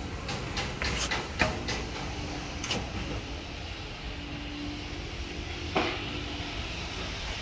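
Construction-site background rumble with a faint on-and-off hum, broken by a quick run of sharp clicks and knocks in the first three seconds and one louder knock near six seconds.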